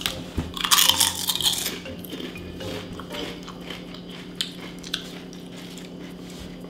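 A loud crunch as a potato chip is bitten into about a second in, followed by scattered smaller crunches of chewing.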